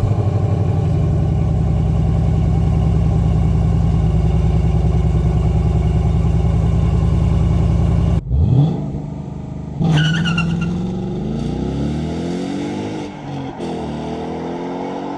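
Ford Mustang GT's V8 with an H-pipe and stock rear boxes idling steadily and deep. About eight seconds in the sound changes to a quick rev. After that the engine pulls away twice, its pitch rising each time.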